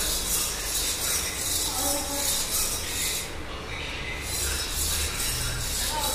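A steel spoon scraping around a stainless steel bowl as yogurt is beaten smooth, in steady strokes about two to three a second. The strokes stop for about a second midway, then carry on.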